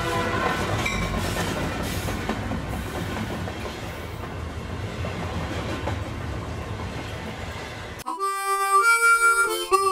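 A train running with a steady rumble and clatter, its whistle tones dying away at the start. It cuts off abruptly about eight seconds in and a short instrumental tune follows.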